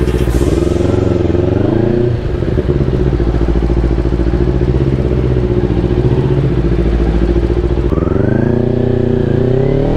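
Motorcycle engine running under way at steady revs, dipping briefly about two seconds in, then revving up with a rising pitch near the end.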